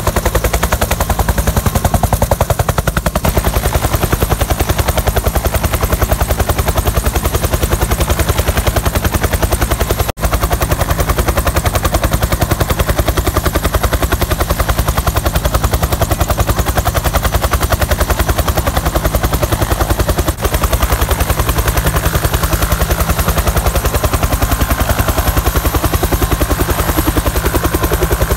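Bell UH-1D Huey helicopter running close by, its two-bladed main rotor beating in a fast, even wop-wop under the whine of its turbine engine.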